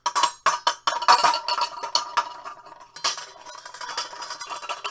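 A metal spoon clattering rapidly and irregularly inside a saucepan, with the pan ringing under the strikes and a brief pause about three seconds in. It is a home-made sound effect for pots and pans flying about in a storm.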